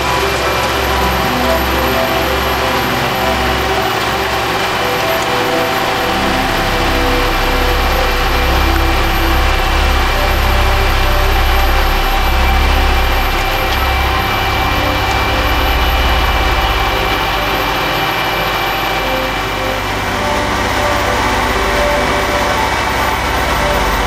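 Heavy diesel paving machinery running steadily close by: a Roadtec SB-2500 material transfer vehicle taking hot-mix asphalt from a dump truck. A deep engine rumble carries several steady higher tones.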